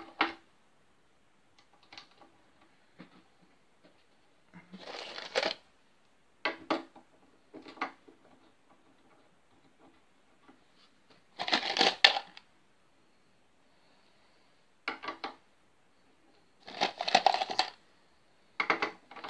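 Intermittent clinks and clatter of small hard objects being handled on a workbench, in short bursts of a second or less with quiet gaps between, the longest around twelve seconds in and again near seventeen seconds.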